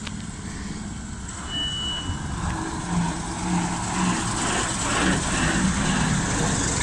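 Large coach bus driving past at close range, its engine running with a low rumble that grows louder from about two seconds in. A brief high beep sounds about a second and a half in.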